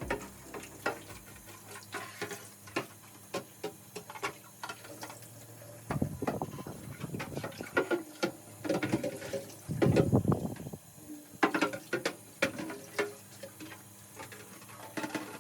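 Household handling sounds: scattered light clicks and knocks of objects being moved, with two short rushes of noise about six and ten seconds in.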